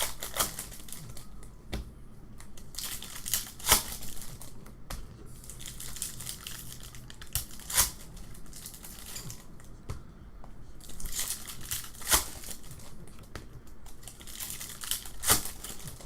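Foil trading-card pack wrappers crinkling and tearing as packs are ripped open and cards handled, with a few sharp snaps spaced several seconds apart.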